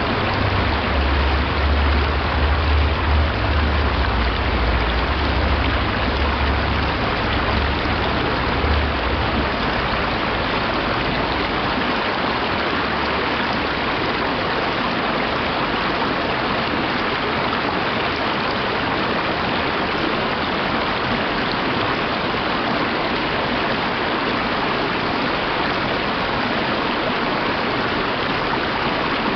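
Small mountain stream running over rocks and little cascades: a steady, even rush of water. A low rumble sits underneath for roughly the first ten seconds, then fades out.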